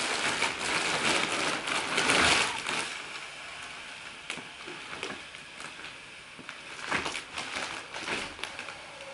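Plastic roll-up space-saver bag packed with clothes crinkling and rustling as it is rolled up by hand to push the air out through its vent. Loudest for the first three seconds, then quieter scattered crinkles.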